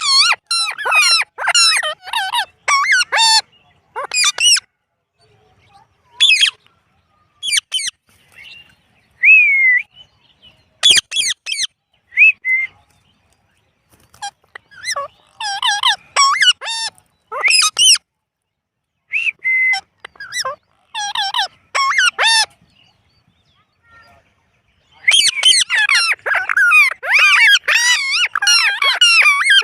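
Indian ringneck parrot calling in bursts of high-pitched squawks and chatter, with short gaps between them. A dense, unbroken run of calls starts near the end.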